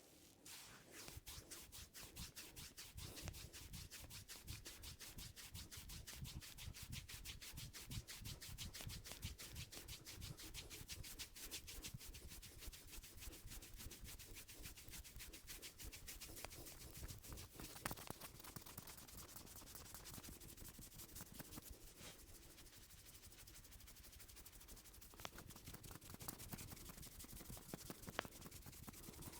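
Barber's hands rubbing briskly over a person's scalp and hair in a head massage: a fast, unbroken run of rubbing strokes.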